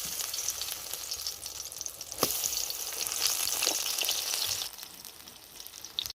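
Batter-coated pumpkin flowers deep-frying in hot oil: a steady sizzle full of small crackles, with one sharp knock about two seconds in. The sizzle drops away near the end and then cuts off abruptly.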